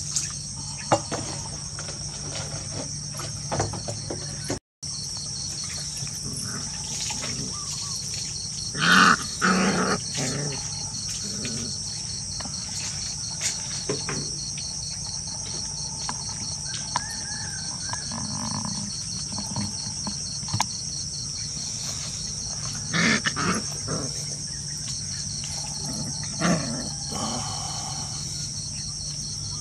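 Steady pulsing chorus of crickets, with short bursts of puppy growling as the puppies wrestle, loudest about nine seconds in and again around twenty-three seconds.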